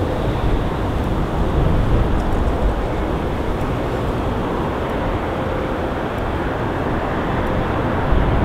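Jet airliner's engines running at take-off power, a steady, even noise with a faint held tone through it. Strong wind buffets the microphone with an uneven low rumble.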